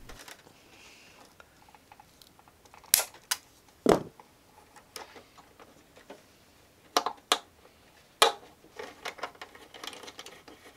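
Sharp, scattered clicks and taps of small metal and plastic control-linkage fittings being handled: pull-pull cable ends and a plastic clevis fitted onto the rudder control horn. About six distinct clicks, in pairs, with fainter ticks near the end.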